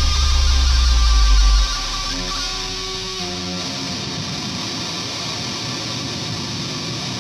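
Guitar music: a heavy deep note that stops a little under two seconds in, then a few held notes that give way to a steady ringing wash of sound.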